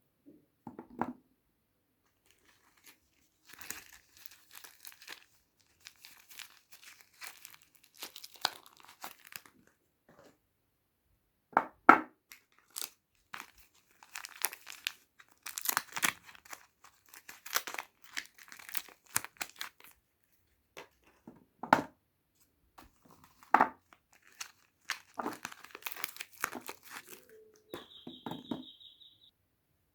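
Soap wrappers being opened by hand: paper and plastic packaging crinkling and tearing in irregular bursts, with a few sharp clicks. A brief steady high squeak near the end.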